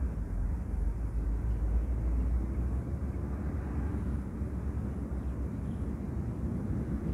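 Steady low outdoor rumble with no distinct events, of the kind left by wind and distant road traffic.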